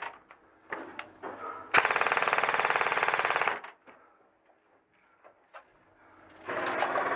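Electric airsoft rifle (a G&G CM16 AEG) firing full-auto: one rapid burst of about two seconds, then a second burst starting near the end.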